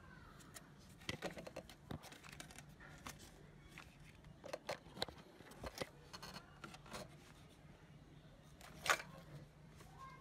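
Gloved hands working a rubber PCV hose and its metal hose clamp off the PCV valve: scattered clicks, scrapes and rustles, with a sharper scrape about nine seconds in, over a faint steady hum.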